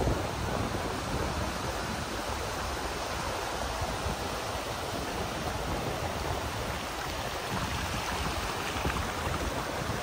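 Atlantic surf: small waves breaking and washing up a sandy shore in a steady, even hiss.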